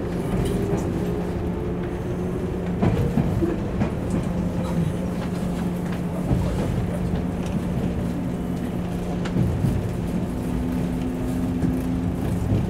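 Running noise inside a JR West Series 113 motor car as it pulls away from a station: the MT54 traction motors hum under a steady rumble, one tone rising slowly as the train gathers speed, and the wheels give a few clacks over the rail joints.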